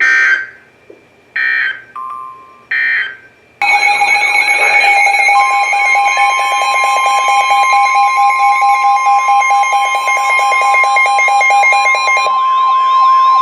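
Emergency Alert System broadcast on NOAA Weather Radio: three short buzzing SAME data header bursts, then from about three and a half seconds a loud layered electronic alarm of several steady tones with repeating sweeps. Under it, from about five seconds, runs the steady single-pitch weather radio alert tone, signalling a new warning about to be read.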